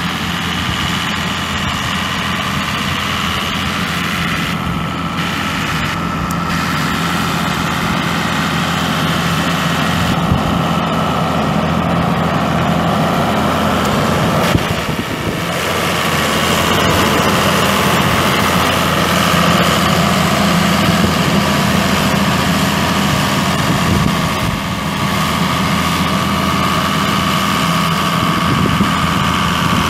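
Six-cylinder turbo diesel engine (Case 6T-590) of a Case IH Maxxum 5250 tractor running at idle, growing louder about halfway through.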